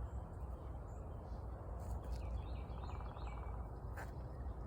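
Wild birds chirping faintly, in short high calls over a low steady background rumble, with a single sharp click about four seconds in.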